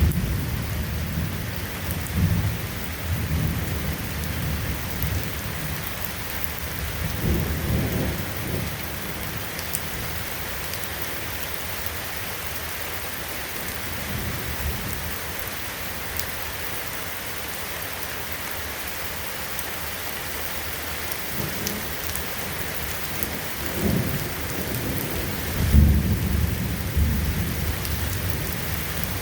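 Steady rain falling, with several low rumbles of thunder rolling through; the loudest rumble comes near the end.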